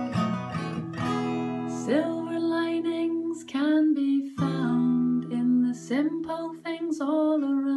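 Acoustic guitar strummed, a Taylor with a capo, with a woman singing over it.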